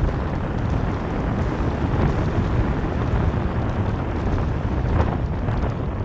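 Wind buffeting the microphone over steady road noise from a car driving along a road: a constant low rushing rumble with occasional faint crackles.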